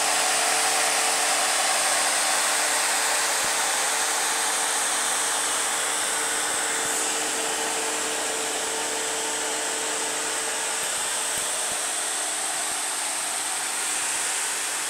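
Cooling fans of a six-card ATI Radeon HD 5870 Bitcoin mining rig running under mining load: a steady rush of air with two faint steady hum tones beneath it.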